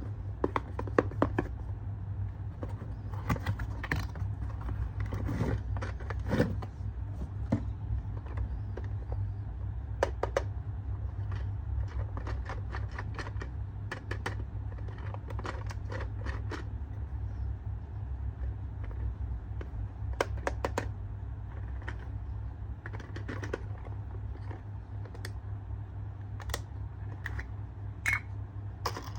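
Hands handling plastic toy packaging and parts: scattered irregular clicks, taps and light scrapes of plastic over a steady low hum.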